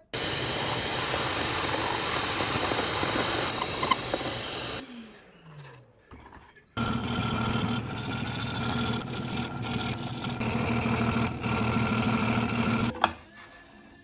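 A drill press runs and bores into a wooden block, then its motor winds down with a falling hum. A scroll saw then starts, runs steadily with a fixed hum while its blade cuts the wood, and stops abruptly near the end.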